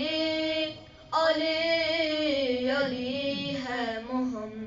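A child's voice singing an unaccompanied Urdu manqabat, a Shia devotional chant, with long held, wavering notes and a short pause for breath about a second in.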